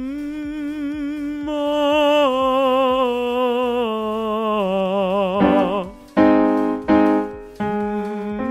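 Male vocal-exercise singing over a keyboard accompaniment. A long note with vibrato starts as a hum and opens into a brighter "ma", then steps down in pitch. Two short, loud notes follow about six and seven seconds in, then another held note.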